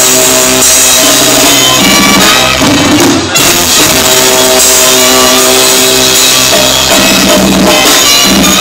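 Live banda brass band playing loud: the brass section holds sustained chords over a drum kit, with a brief break about three seconds in.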